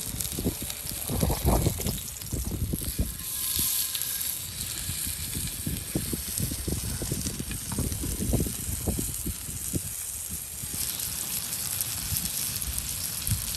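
Strong wind gusting against the microphone: an uneven low rumbling buffet over a steady hiss.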